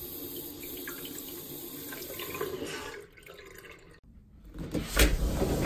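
Bathroom faucet running steadily into a sink for about three seconds. After a break, a sliding glass door is pulled open with a sharp clack about five seconds in, followed by a louder steady rush of noise.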